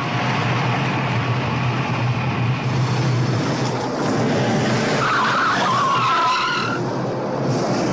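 Renault 16 car engine running through a fast corner, with its tyres squealing; a wavering tyre squeal rises over the engine about five seconds in.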